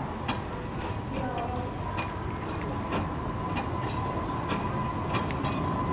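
Human-powered pedal rail cart rolling along a narrow-gauge track: a steady rumble of wheels on rail with a sharp click about once a second, and a faint steady whine.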